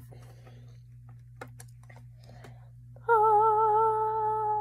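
A few faint clicks and taps as a plastic eyeshadow palette is opened, then, about three seconds in, a girl's voice holds one sung note with vibrato for nearly two seconds.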